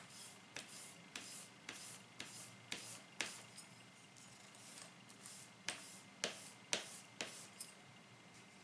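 Plane blade scraped in short strokes on a wet diamond sharpening plate, about two strokes a second: a run of six, a pause, then five more, as in final honing or deburring of the edge.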